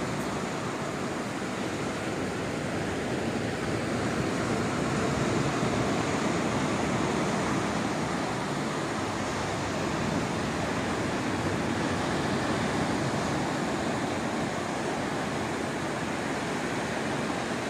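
Ocean surf breaking on a beach, heard as a steady rushing wash.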